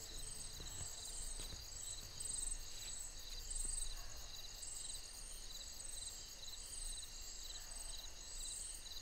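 Crickets chirping in steady, evenly repeating pulses, several overlapping, over a faint low rumble.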